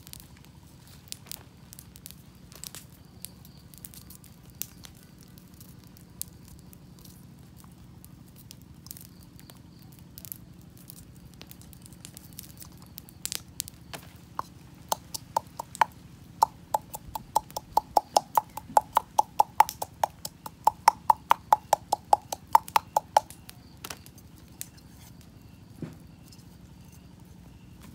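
Campfire crackling with scattered pops. About halfway in comes a run of quick, even knocks with a ringing metallic tone, about three a second for roughly ten seconds, from pounding or tapping inside a small metal cup.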